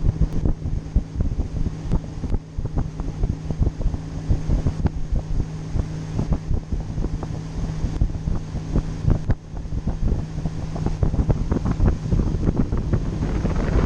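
Boat motor running with a steady low hum, under heavy wind buffeting the microphone.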